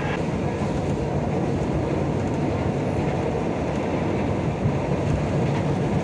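Electric commuter train running at speed, a steady rumble and rush of the moving carriage heard from inside it.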